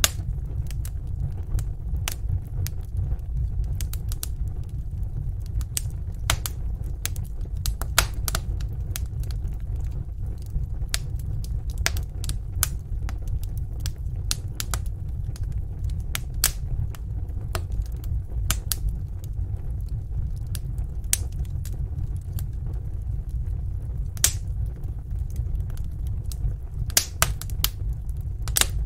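Wood fire burning in a fireplace: irregular crackles and sharp pops over a steady low rumble of the flames, with a few louder pops about eight seconds in and near the end.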